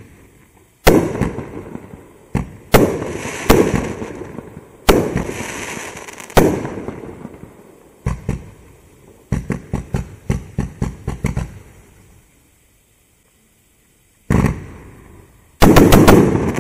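Winda 'The Final Storm' 38-shot fireworks cake firing: a string of loud bangs, each trailing off over a second or two. About halfway through comes a quick run of sharper pops, then a pause of about two seconds before two more bangs, the last the loudest.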